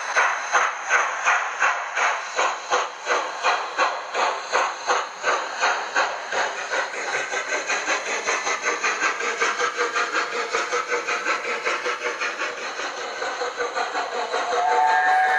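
Zimo sound decoder in a Hornby OO model of LNER A4 Bittern playing the steam locomotive's exhaust beat through the model's speaker, about three chuffs a second at first, then quicker and softer as it runs on. A whistle starts near the end.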